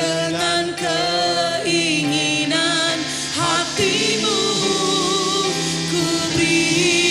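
Christian worship song: voices sing long held notes with vibrato and a few sliding phrases, over instrumental accompaniment.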